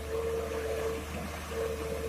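Komatsu PC200-6 hydraulic excavator working: the diesel engine runs steadily under a high whine that drops out for a moment about a second in. Water sloshes as the bucket drags through gravel on the riverbed.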